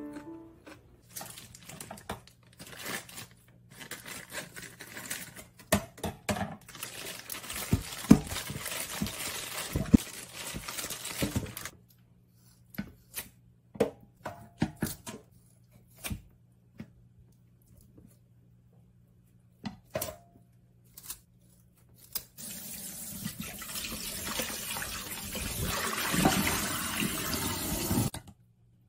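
Tap water running and splashing in a stainless steel sink as a whole raw chicken is rinsed in a metal bowl, with short snips and clicks of kitchen scissors in the middle. Near the end the tap runs in a steady stream, then cuts off suddenly.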